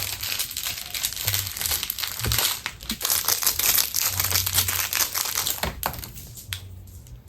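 Dense crinkling and crackling from something handled close to the microphone, made up of many quick clicks. It thins out and quietens about six and a half seconds in.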